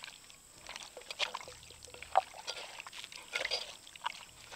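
Soft, irregular wet squelching and squishing of a hand kneading raw chicken pieces into a yogurt and spice marinade in a clay pot.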